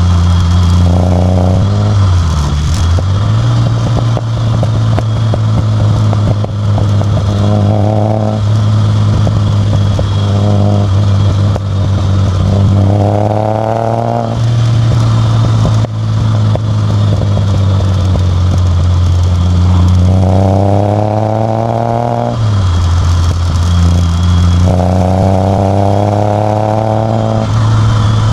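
Ford Taunus exhaust, heard from a microphone right at the tailpipe, as the car is driven: a steady low drone with the engine note climbing through the revs about six times as the car accelerates, then dropping back. Scattered pops and crackles come from the exhaust.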